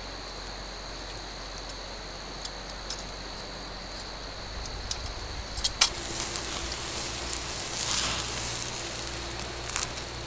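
Campfire crackling under a wire grill of spare ribs, with sharp clicks of metal tongs against the grate as the ribs are turned. It gets busier about halfway through.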